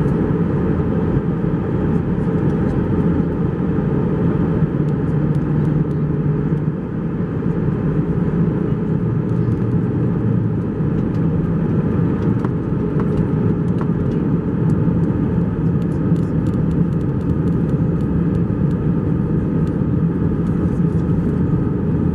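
Cabin noise of an Airbus A321-231 in descent, heard from a window seat over the wing: the steady drone of its IAE V2500 turbofans and the rush of air, with several steady hum tones. The level dips briefly about seven seconds in.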